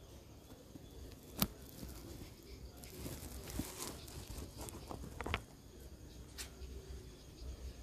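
A large dog nuzzling against the phone close to its microphone: rustling and scraping with scattered clicks. The loudest is a sharp click about a second and a half in, and there is a breathy hiss around three to four seconds in.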